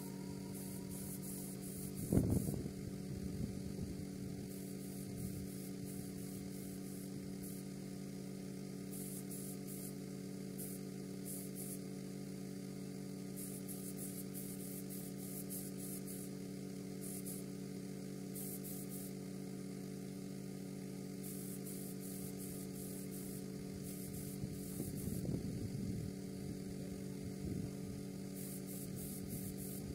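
Steady low electric hum of a running air compressor, with short bursts of faint high hiss from a gravity-feed paint spray gun, on and off. A low thump comes about two seconds in.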